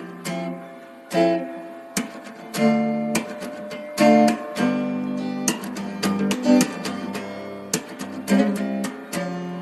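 Acoustic guitar music, chords strummed and notes plucked in a steady flow.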